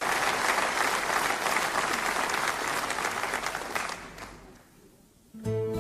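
Audience applause, dense clapping that fades away about four to five seconds in. Near the end an acoustic guitar starts playing.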